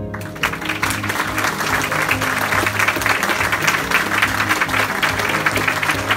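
Crowd applauding, breaking out suddenly just after the start and going on steadily, with music playing underneath.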